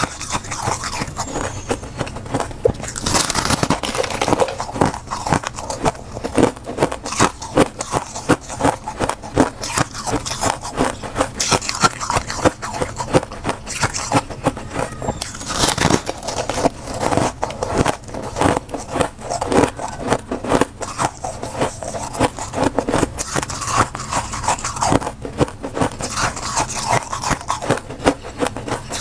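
Close-miked biting and chewing of a block of soft, blue-flavoured freezer frost: a dense, continuous run of crisp crunches.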